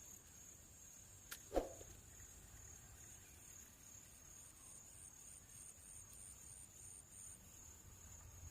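Faint insects outdoors: a steady high drone with a pulsing chirp, about four or five pulses a second, over near silence. A sharp click, then a short thump, about a second and a half in.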